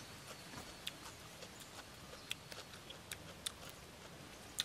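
Faint, irregular soft clicks of raw shrimp being handled, pulled apart by hand and eaten.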